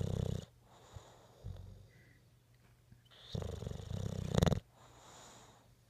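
English bulldog snoring. A snore comes right at the start, a weaker one about a second and a half in, and a long, loud, rattling snore from about three seconds to four and a half. A soft breath out follows.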